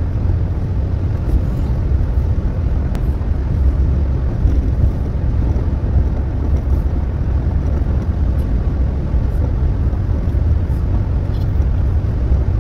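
Car driving at highway speed, heard inside the cabin: a steady low rumble of road and engine noise.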